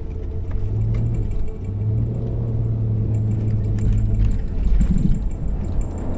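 A four-wheel-drive SUV's engine rumbling at a steady note, dipping briefly about a second and a half in, with background music underneath.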